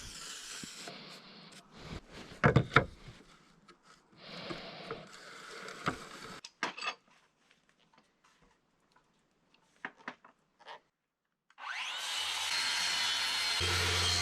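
Woodworking sounds: wood being handled and scraped, with a few sharp knocks, the loudest about two and a half seconds in. After a quiet stretch, a power tool starts up near the end and runs steadily with a low hum.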